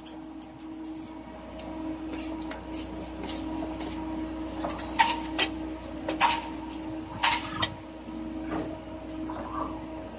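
Scattered sharp clicks and knocks from handling potted plants and pots, most of them between about five and eight seconds in, over a steady low hum.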